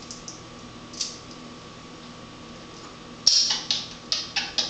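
African grey parrot making sharp clicking sounds: one click about a second in, then a quick run of about five louder clicks near the end.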